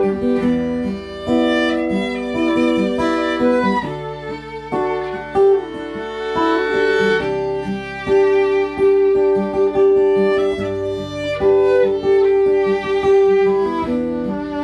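Fiddle playing a melody of long held notes over strummed acoustic guitar, with no singing: an instrumental passage of a folk-rock song.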